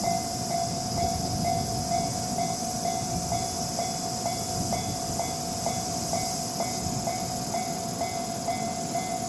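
Japanese level-crossing warning bell ringing its 'kan-kan' about twice a second, over the rumble of a train passing the crossing.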